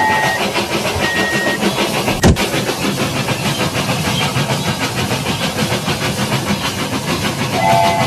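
Toy steam train's sound effects: a whistle of several steady tones sounding together ends about half a second in, then a steady chugging, hissing noise with one sharp click about two seconds in. The whistle starts again near the end.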